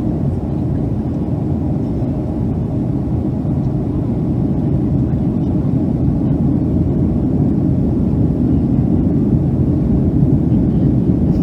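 Boeing 757-200 heard from inside the passenger cabin during takeoff or climb: a steady low rumble of engines and airflow that grows slightly louder toward the end.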